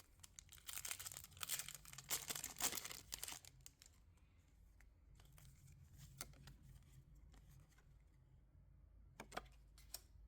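Foil wrapper of a Pokémon trading card booster pack being torn open and crinkled for about three seconds, followed by a few soft clicks as the cards are handled.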